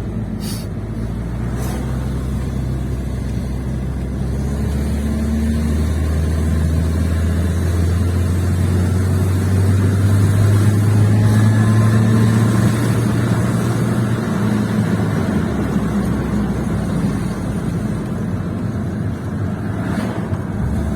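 Mercedes car driving, with engine and road noise. The engine note climbs and grows louder over several seconds, then drops back about fifteen seconds in.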